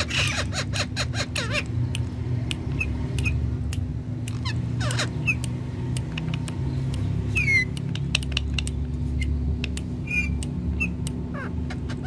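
Rose-ringed parakeets giving short, high squawks and chirps, one call falling in pitch past the middle, with a fast run of sharp clicks in the first second and a half and scattered clicks afterwards. A steady low hum runs underneath.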